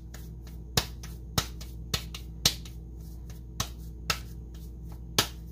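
Hands patting a ball of corn masa flat into a thin tortilla: a run of short, sharp pats, about two a second with a brief pause near the middle.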